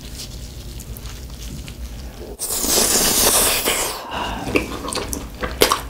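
Crispy Chicago-style pizza crust crunching loudly as it is bitten, starting about two and a half seconds in and lasting over a second. A few sharp chewing clicks follow.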